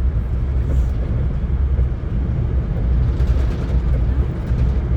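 Steady low rumble of a VIA Rail passenger train running on the track, heard from inside the coach as it picks up speed after leaving a station.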